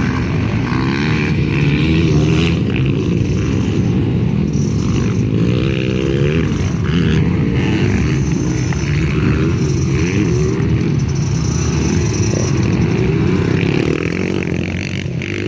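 KTM 50 SX mini motocross bike's small two-stroke engine revving as it rides the track, its pitch rising and falling again and again with the throttle.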